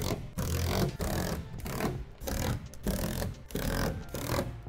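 Background music with a regular beat.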